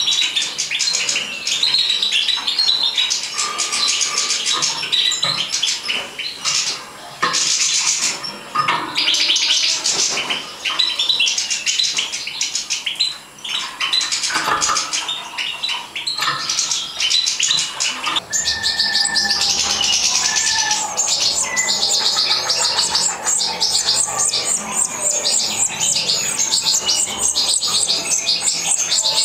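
European goldfinch song: a continuous rapid twittering of tinkling notes, trills and short buzzy phrases.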